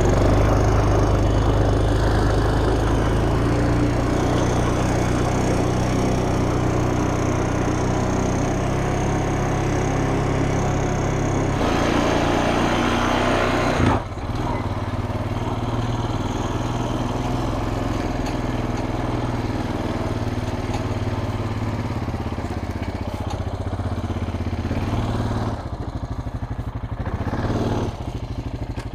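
Gasoline chainsaw running. It gets noisier for a couple of seconds about halfway through, then drops off abruptly and carries on running a little quieter.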